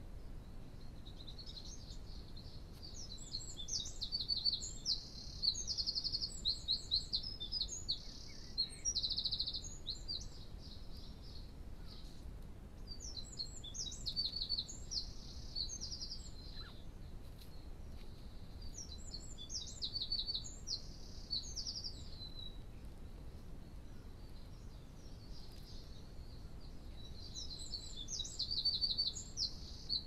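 A songbird singing outdoors in bouts of quick, high-pitched notes and trills, each bout lasting a second or more, with pauses of a few seconds between bouts, over faint low background noise.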